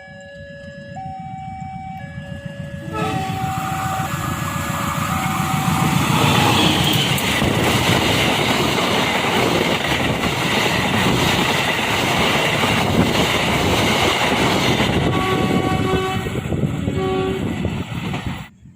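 A train horn sounds in alternating notes, then the train passes close by with a loud rush and fast clatter of wheels on the rails. The horn sounds briefly again near the end, and the sound cuts off suddenly.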